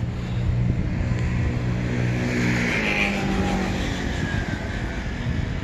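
A car engine running steadily, with a short rise of hiss about three seconds in.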